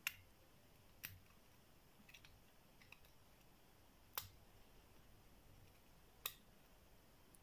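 Sharp metal clicks from a cross lock being picked with a pick and tension wrench: four distinct clicks a second to a few seconds apart, with a few fainter ticks between.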